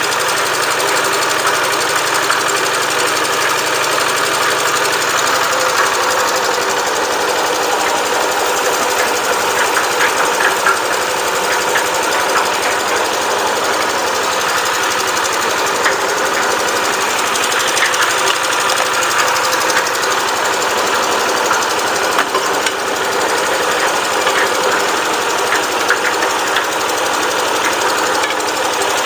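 Small stationary engine of a concrete mixer running steadily, turning the mixer drum through its belt pulley.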